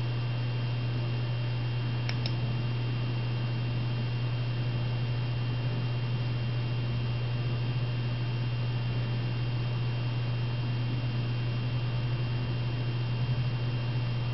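Steady low hum with an even hiss and a faint high tone, and one faint tick about two seconds in.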